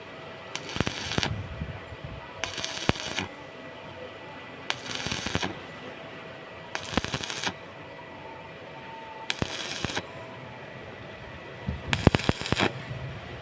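Stick welding arc on steel square tube, crackling in six short bursts of under a second each, about two seconds apart.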